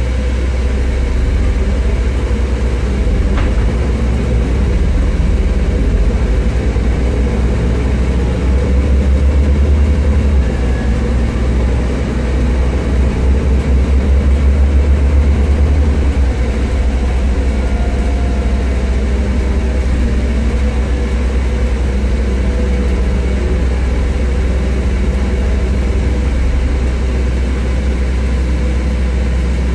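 Interior of a Scania Enviro400 MMC gas-powered double-decker bus on the move: a steady low drone from the engine and running gear, heavier for a few seconds around the middle.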